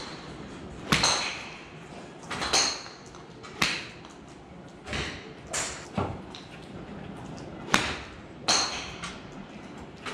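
Golf clubs striking balls at a driving range: about seven sharp cracks at irregular intervals, several with a short metallic ring, from golfers in several bays.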